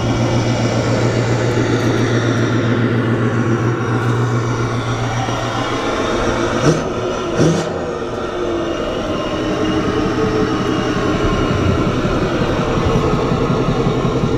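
Pickup truck engine idling steadily, with two short knocks about seven seconds in.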